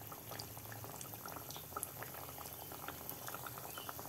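Thekua, sweet wheat-flour dough cakes, deep-frying in hot oil in a kadai: a steady soft bubbling with many small scattered crackles.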